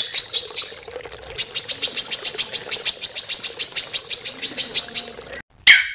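A small songbird calling loud and fast: a few high rising notes, then an even string of sharp, high chips at about eight a second for several seconds, and a short falling call near the end.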